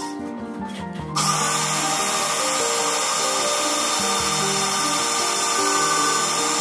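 Electric drill starting about a second in and running steadily, its bit boring into the commutator end of a chop saw armature to free the commutator, with a steady whine.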